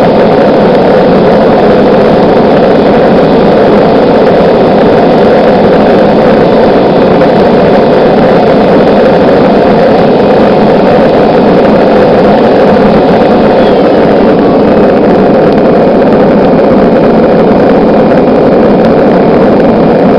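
Blower-fed propane gas forge burning: a loud, steady rush of forced air and flame from the burner.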